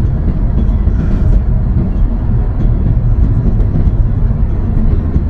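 Steady low rumble of a car driving on a country road, heard from inside the cabin: road and tyre noise.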